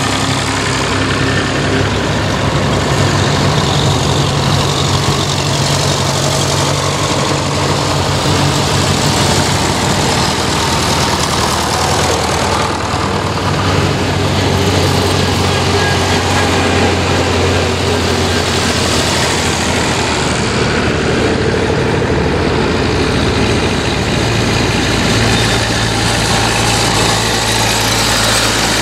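Vintage farm tractor engines running as a procession of tractors drives past one after another. The steady low engine note changes pitch as each machine approaches and passes.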